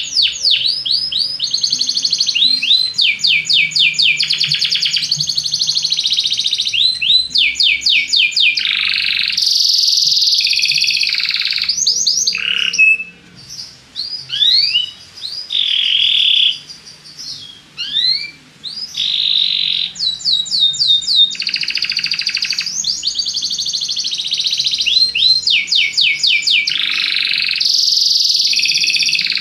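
Belgian canary singing a long song of fast trills and rapidly repeated sweeping notes, with a few short breaks about halfway through.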